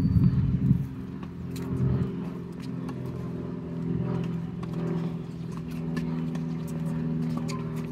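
An engine running steadily, with scattered sharp clicks over it.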